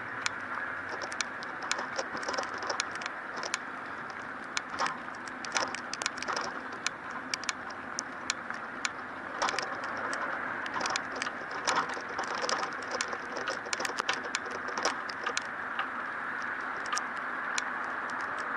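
Street ambience in rain: a steady wash of noise with many scattered sharp ticks and taps throughout.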